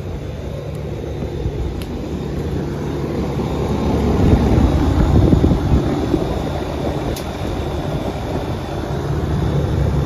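Outdoor air-conditioning condenser unit running with a steady low hum. A louder low rumble swells about four seconds in and eases off a couple of seconds later.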